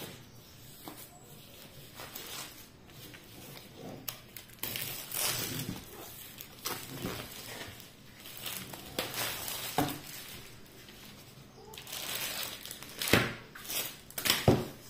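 Clear plastic shrink-wrap crinkling and tearing as it is pulled off a stretched painting canvas, in irregular rustling bursts, with a couple of sharp knocks near the end.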